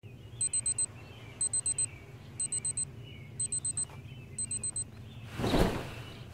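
Smartphone alarm beeping: a group of four quick, high beeps about once a second, five times over. Near the end comes a loud rustling whoosh of the bedding being thrown back.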